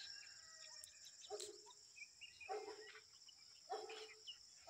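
Faint outdoor ambience: a steady, high-pitched insect chirring, and a short animal call that comes back about every second and a quarter, four times.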